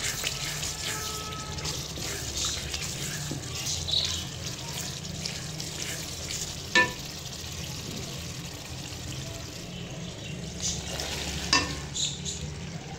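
Onion-tomato masala sizzling in oil in an aluminium karahi while a wooden spoon stirs and scrapes through it. Two sharp knocks, the first about seven seconds in and the louder one, the second about four and a half seconds later.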